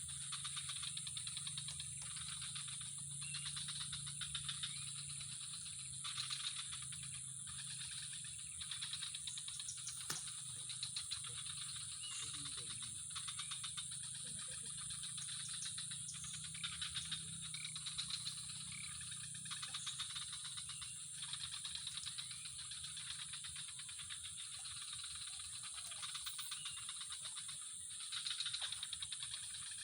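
Dense chorus of calling insects: a steady high shrill with rapid rattling pulses underneath, continuous throughout.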